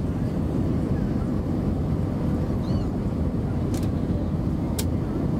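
Steady low rumble inside an Airbus A320's cabin on the descent to landing: engine and airflow noise heard from a seat over the wing. Two faint clicks sound near the end.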